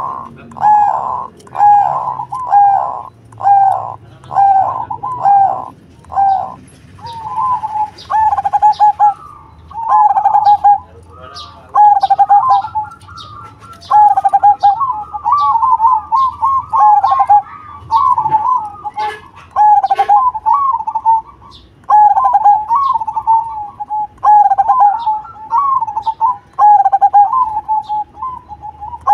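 Zebra dove (perkutut) cooing: a run of short cooing notes about two a second, then from about seven seconds in, longer wavering coo phrases repeated every second or two.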